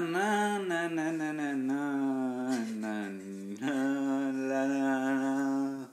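A man humming a tune in long held notes without words, breaking off briefly about two and a half and three and a half seconds in.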